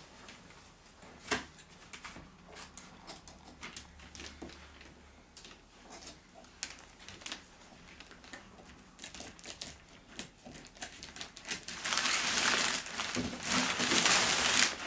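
A cardboard shipping box being opened by hand: scattered small clicks and scrapes of handling, then loud, dense crinkling and rustling of the packaging for the last few seconds.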